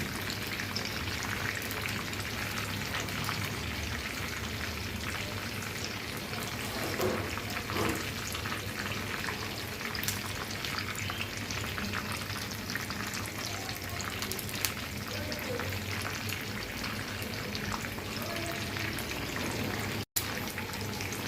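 Whole chicken deep-frying in hot oil: a steady sizzle with scattered crackles and pops. It cuts out for an instant about twenty seconds in.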